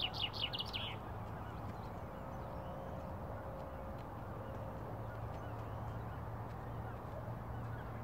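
A songbird sings a quick run of high, falling notes that stops about a second in. Then only a steady outdoor background hiss remains, with a low hum under it.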